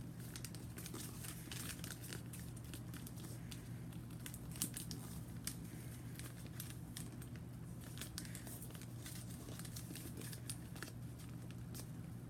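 A square sheet of paper rustling and crinkling in scattered short crackles as it is folded and creased by hand.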